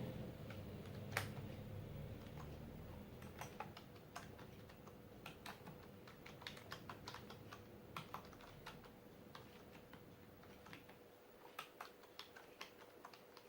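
Keys of a Logitech K480 Bluetooth keyboard clicking as someone types, a faint, irregular run of key presses. A low hum fades out over the first few seconds.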